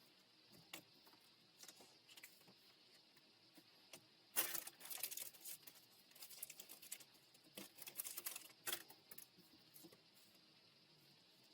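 Small items and packaging being handled: scattered light clicks and taps, with two spells of rustling and crinkling about four and seven seconds in.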